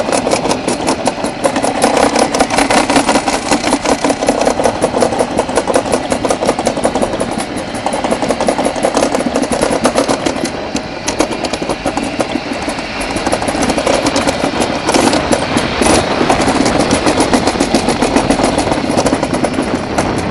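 Summer bobsleigh sled running fast down a metal trough track, a continuous rapid rattling rumble. It includes a couple of sharper knocks about three quarters of the way in.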